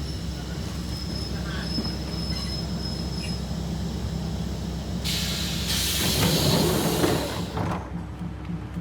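Diesel train at a station: a steady low engine rumble with a thin high squeal that fades after about three seconds, then a loud hiss lasting about two and a half seconds from about five seconds in.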